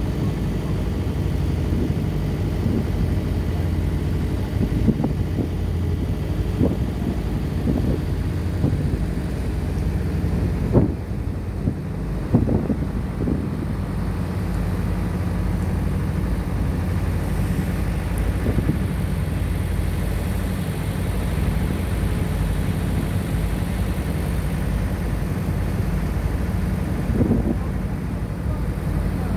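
Ship's engine running steadily under way: a low, even drone, with a few short louder sounds on top, the loudest about eleven seconds in.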